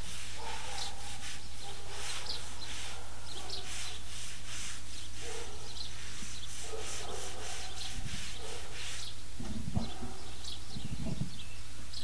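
Outdoor ambience of birds chirping over a steady low electrical hum, with a few low rumbles near the end.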